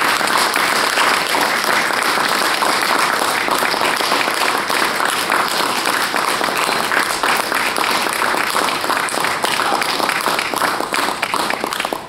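Audience applauding, many hands clapping continuously.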